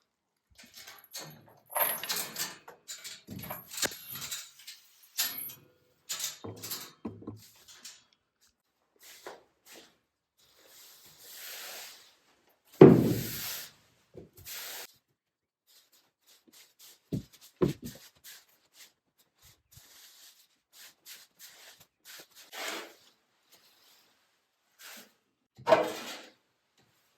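Scattered knocks and clatters of a wooden board and a barn gate being handled, with one loud bang about halfway through.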